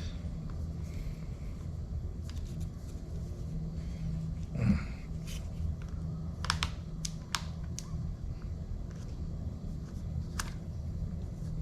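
Scattered sharp clicks and light knocks of a spinning reel and rod being handled, the reel seat's locking rings worked to secure the reel: one louder knock near the middle, a quick cluster of clicks shortly after, and a last click near the end, over a low steady hum.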